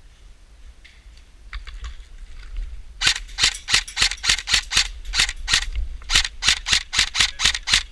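Airsoft gun firing quick sharp pops, about five a second, in several strings with short breaks, starting about three seconds in.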